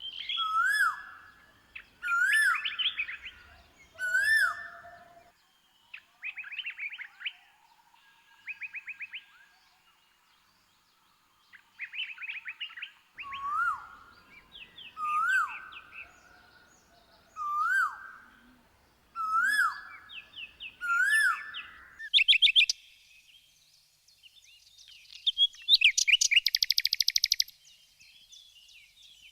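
Songbirds calling: a whistled rising note repeated about every two seconds, with quick even trills between the notes. Near the end come busy chattering and a dry rattling trill of a second or two.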